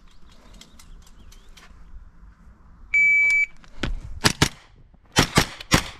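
Shot timer's start signal, one steady high beep about half a second long, followed within half a second by rapid fire from a JP GMR-15 9 mm pistol-caliber carbine: roughly six shots in two quick groups.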